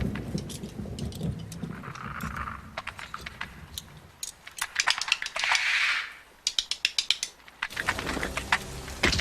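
Rapid mechanical clicking and rattling, uneven and in dense runs, with two short hisses about two and five and a half seconds in.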